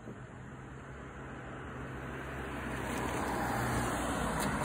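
A car driving past close by: its engine hum and tyre noise grow steadily louder and peak near the end as it passes.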